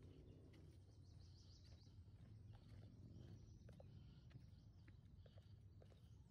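Near silence: faint woodland ambience with scattered soft footsteps and a few faint bird chirps.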